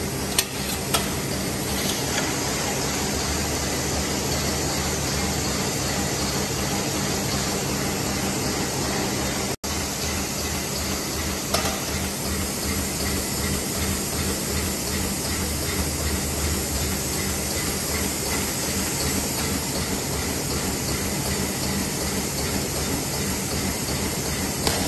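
Automatic tea bag packing machine running: a steady mechanical whir and hiss with a low hum underneath, cutting out for an instant about ten seconds in.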